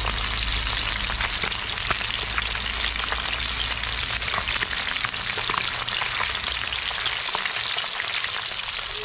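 Fish frying in hot oil: a steady sizzle full of small crackles and pops.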